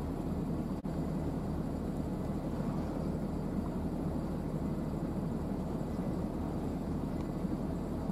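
Steady low rumble of a passing coastal container ship's diesel engine heard across calm water, with a fast regular pulsing beat underneath. The sound drops out for an instant about a second in.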